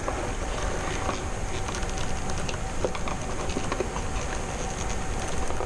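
Hands pushing a crimped spade terminal into a plastic wiring connector: scattered small clicks and rubbing over a steady low rumble.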